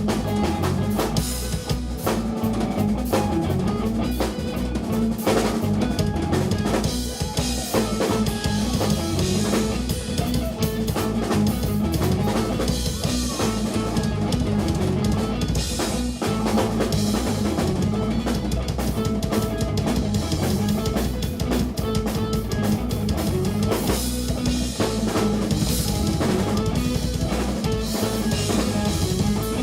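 Live instrumental rock band playing, with the drum kit loudest: dense bass drum, snare and cymbal hits over sustained bass and guitar notes.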